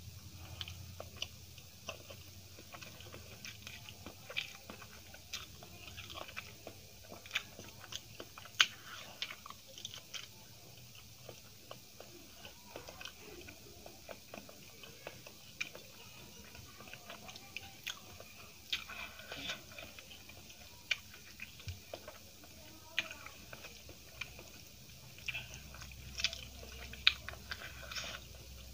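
A person chewing a mouthful of rice and curry close to the microphone, with frequent short sharp mouth clicks and the odd crunch.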